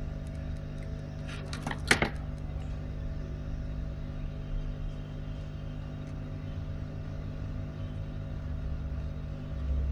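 Steady low hum with a short clatter of small clicks about two seconds in.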